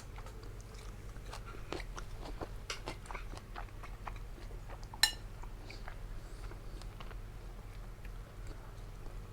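Chewing and eating sounds: mouth noises and small scattered clicks of utensils or dishes, with one sharper click about five seconds in, over a steady low hum.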